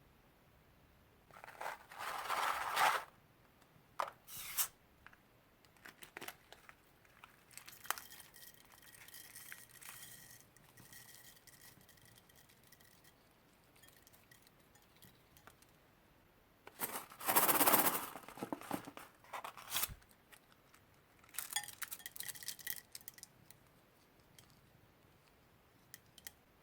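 Hands handling slime-making materials, with no music: a few short bursts of tearing or crinkling plastic, two of them lasting a second or two, and small clicks and clinks in between.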